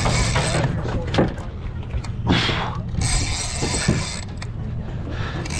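A game-fishing reel being wound in against a hooked bluefin tuna, a mechanical winding and ratcheting noise over a boat engine's low, steady hum. There are several short surges of noise, the strongest about two seconds in.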